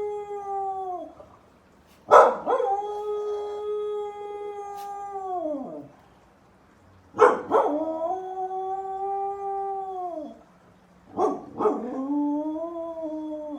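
A pet dog howling: long drawn-out howls, each starting with a sharp yelp, holding a steady pitch for a few seconds and then sliding down as it fades. The end of one howl trails off about a second in, and three more follow with short gaps between them.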